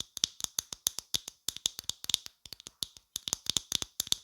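Rapid ASMR finger tapping: crisp, bright taps at about seven a second, in uneven runs with brief gaps.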